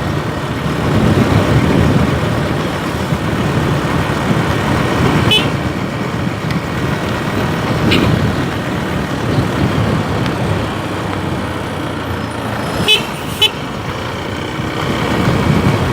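Motorcycle riding through traffic: a steady mix of engine and wind noise. A few short high beeps stand out, one about a third of the way in, one about halfway, and two close together near the end.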